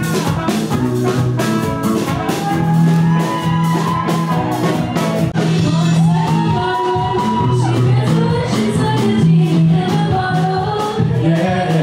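Rock band music: a singer over a steady bass line and drums.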